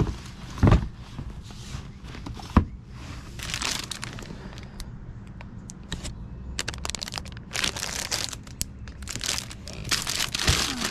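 Rustling and crinkling of objects being handled and rummaged through, in irregular bursts, with two knocks about a second and two and a half seconds in.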